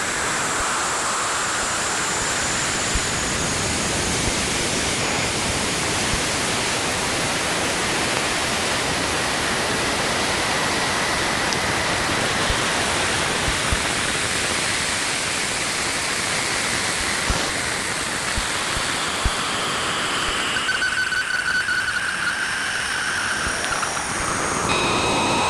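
Space radio recording turned into sound: a steady static hiss with a few isolated clicks, and faint gliding whistle tones entering near the end.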